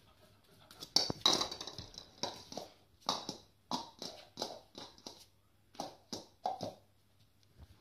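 A German Shepherd puppy moving about with a ball on a laminate floor: irregular taps and knocks, about two or three a second, starting about a second in.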